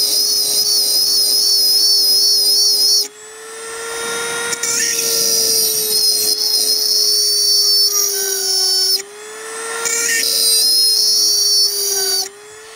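Dremel rotary tool drilling with a 3 mm bit into the threaded steel stub of a wiper pivot mount: a steady high motor whine with a gritty cutting screech on top. The screech drops away suddenly about three seconds in and again about nine seconds in, then builds back over a couple of seconds each time.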